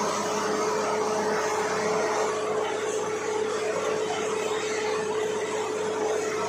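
Borewell drilling rig running steadily: a dense, unbroken machine noise with a steady hum held over it.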